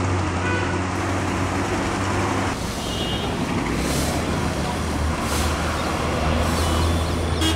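Steady rumble of road traffic, with long-handled brooms sweeping the road surface in the second half: a brief scratchy swish about every second or so.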